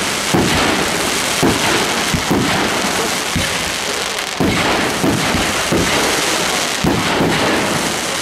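Fireworks display: aerial shells bursting with sharp bangs, roughly one a second at uneven spacing, over a continuous crackling hiss.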